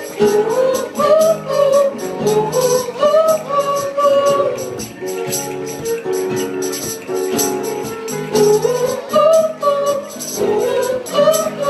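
Live band music: a woman singing a melody in long held phrases over strummed acoustic guitar, with a steady rhythmic high percussion part.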